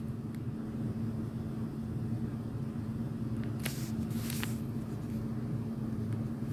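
A steady low background hum holding one low tone, with a few soft clicks about three and a half and four and a half seconds in.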